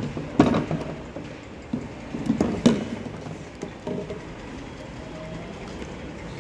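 Several sharp knocks and clatters from a flood-resistant model house and its container being handled, loudest about half a second and two and a half seconds in, over a steady rush of water being poured in.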